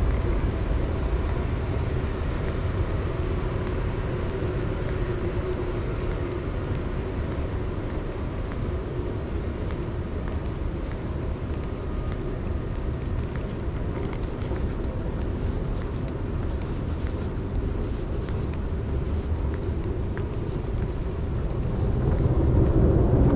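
Steady low rumble and hum of an underground MRT station concourse. About 21 seconds in it grows louder as a running escalator is reached, with a faint high tone briefly over it.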